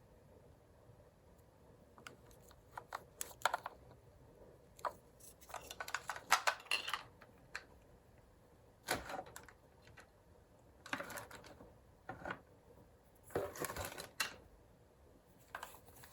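Plastic clicks and short scrapes from a Uniden cordless phone handset being handled, its battery cover being worked open. They come in irregular clusters after a couple of quiet seconds.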